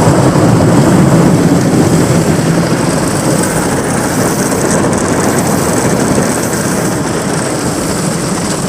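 Gas station automatic car wash running: a loud, steady rush of machinery and spraying water, easing slightly toward the end.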